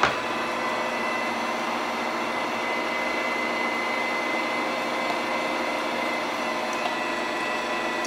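Electric meat grinder running steadily with a constant whine, grinding chunks of game-bird meat, with a sharp knock right at the start.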